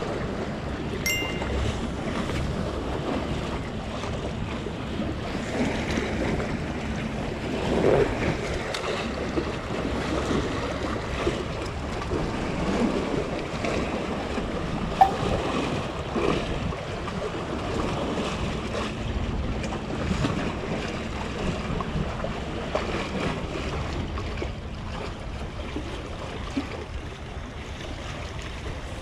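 Sea waves washing and splashing against the concrete tetrapods of a breakwater, with wind buffeting the microphone. A single sharp click about halfway through.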